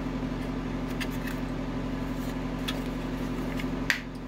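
Small plastic clicks as the parts of a plastic toy lap counter are pressed together, with a sharper snap near the end as a piece pops into place. A steady machine hum runs underneath.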